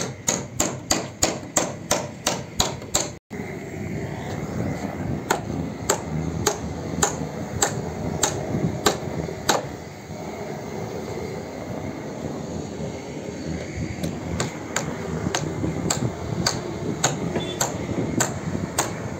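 Hammer driving nails into wooden roof rafters: a fast run of blows, about three a second, that cuts off abruptly, then steadier strikes about two a second, a pause of a few seconds, and another run of strikes near the end.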